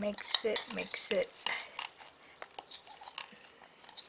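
Metal spoon scraping and clinking against a glass bowl, scraping sticky melted butter, cream cheese and cheese out into a bowl of dry biscuit mix: a run of short irregular clicks and scrapes.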